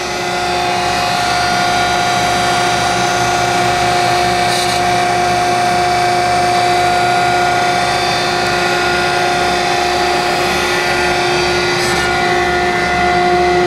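Landis 1R universal cylindrical grinder running without load: its hydraulic pump motor and grinding-wheel spindle give a steady pitched hum, with a low throb about twice a second.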